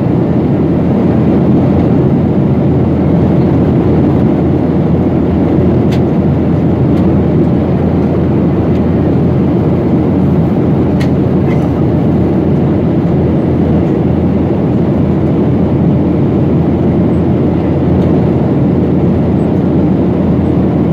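Steady cabin noise inside a jet airliner in cruise: a constant low rush of engines and airflow over the fuselage.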